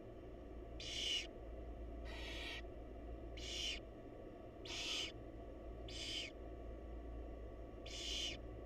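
Barn owl nestlings begging with short hissing calls, about six of them, one roughly every second and a bit with a longer pause near the end, over a steady low electrical hum.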